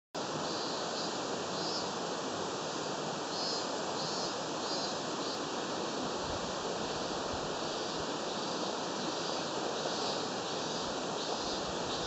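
Steady rushing of a mountain stream flowing under a bridge, with faint high-pitched calls repeating over it in the first few seconds.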